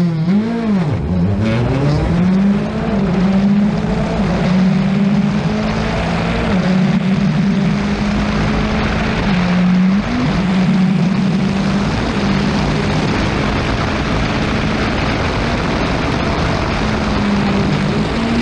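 Rally car engine running hard at high revs. The revs drop sharply and climb back in the first couple of seconds, then hold high with brief dips around the middle and near the end, over a steady rush of road and wind noise.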